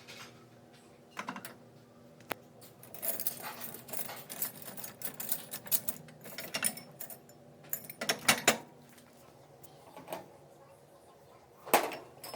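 Irregular clicking and rattling clatter, thickest through the middle and with a sharp click near the end, over a steady low hum.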